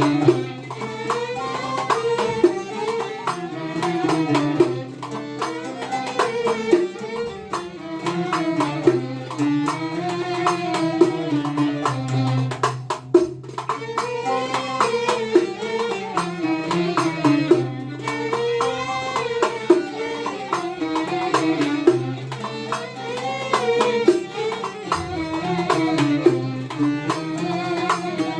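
Background music in a traditional style: a wavering melody over a steady bass with hand-drum and tambourine-like percussion.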